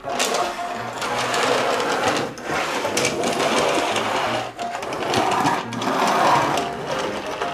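Rapid rattling whir of a toy crawler bulldozer pushed along a plastic play mat, shoving a toy bus. It breaks off briefly about two and a half and four and a half seconds in.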